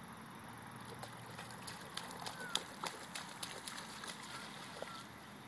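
Faint splashing of feet running through shallow floodwater on a grass field: a scatter of small splashes and slaps, busiest from about a second and a half in until near the end.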